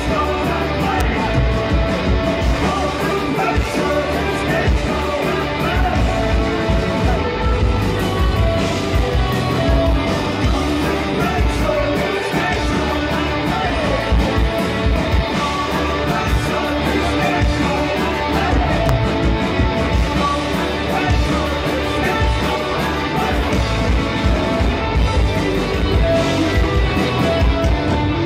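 Live punk rock band playing through a festival PA, heard from the crowd: lead vocals over electric guitar, bass guitar and drums with a steady beat.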